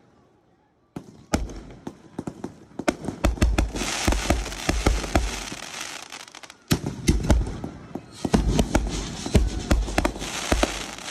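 Consumer aerial fireworks going off: after about a second of quiet, a rapid run of sharp bangs with dense crackling from the bursts. There is a short lull just before a fresh volley about two-thirds of the way in.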